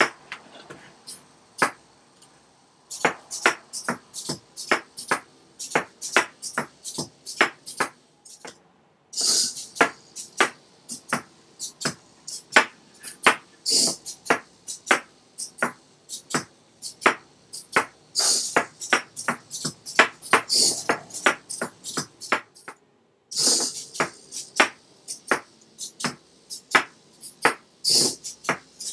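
Small hobby servos of a homemade hexapod robot clicking and whirring as its legs move, with its feet tapping the tabletop: a run of sharp, uneven clicks, two or three a second, broken by short hissy bursts.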